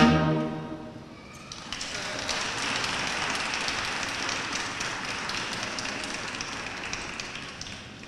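A brass ensemble's closing chord ends about half a second in. Then, after a short gap, an audience claps, building quickly and holding steady for several seconds before it fades near the end.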